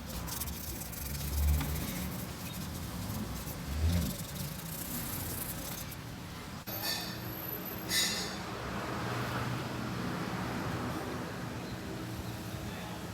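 Car engine running steadily, with a couple of thuds in the first few seconds, an abrupt change about halfway through, then two short bursts of hissing noise.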